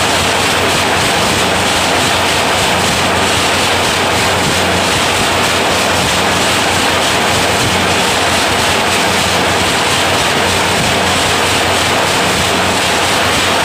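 Automatic wire nail making machine running at speed: a dense, steady mechanical clatter over a low hum.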